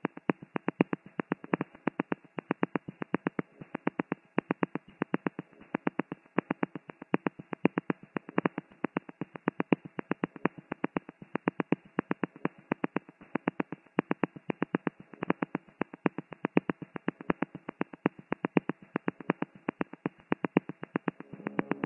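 Electronic music: a rapid, rhythmic clicking pattern, about six sharp clicks a second, some accented louder than others.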